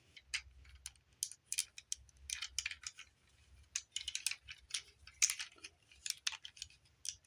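Hard plastic parts of a Transformers Studio Series Deluxe figure clicking and rattling as they are pressed and tabbed together to lock the vehicle mode. The light clicks come irregularly, in small clusters.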